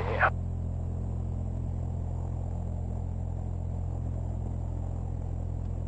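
Piper PA-28-181 Archer's four-cylinder Lycoming O-360 engine running steadily at low power before the takeoff roll, heard from inside the cockpit as an even hum.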